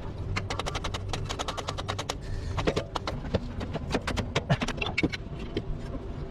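Hand-tool work on a car: a fast run of sharp clicks, about ten a second, for a second and a half, then scattered, irregular clicks and knocks.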